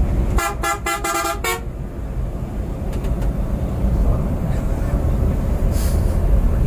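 A vehicle horn sounds in about five quick toots just after the start, over the steady low rumble of a moving Scania coach's engine and road noise.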